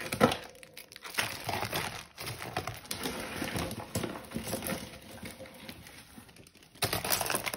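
Plastic zip-lock bag crinkling as a bagful of costume jewellery is tipped out, metal bangles, beads and trinkets clattering and clinking as they spill out. There is a sharp knock just after the start and a louder flurry of rattling near the end.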